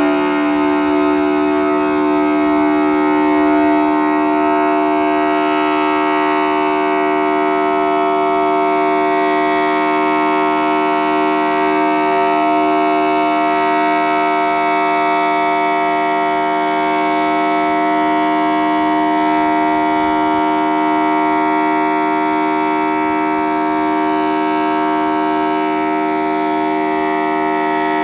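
Federal Signal Thunderbolt 1000T siren with a 4/5-port chopper sounding a steady, chord-like tone at full speed. The sound swells and fades about every four seconds as the rotating head sweeps past. It is the steady signal of a routine siren test.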